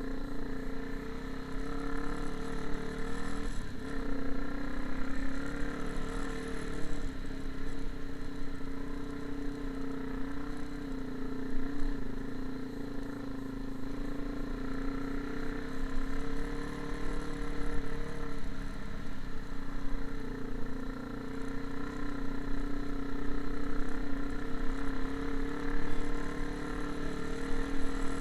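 An engine running steadily at an even speed, a constant hum with no change in pitch.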